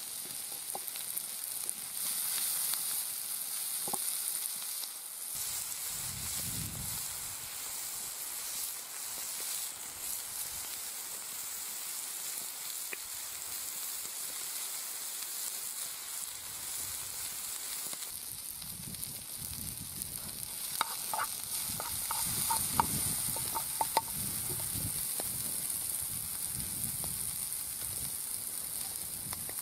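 Sliced vegetables and mushrooms sizzling in a frying pan over a small wood fire, a steady frying hiss. About two-thirds through, a quick run of light knocks and clicks.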